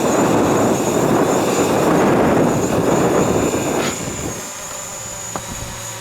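DJI Mavic Pro quadcopter's four propellers buzzing as it lifts off on auto takeoff, with a steady hum and a thin high whine, under heavy wind buffeting on the microphone that eases about four seconds in.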